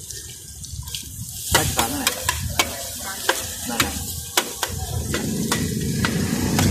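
Metal spatula scraping and clacking against a large shallow frying pan as meat is stir-fried, over a steady sizzle of frying. A quick run of sharp clacks comes from about a second and a half in until near the middle.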